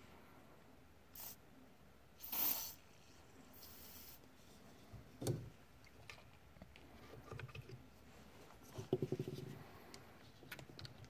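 A short hiss from an aerosol spray can rinsing out a cast-iron hydraulic valve housing, with a second fainter spray soon after. A single knock follows, and near the end comes a quick rattle of rapid clicks as the hone and cordless drill are handled.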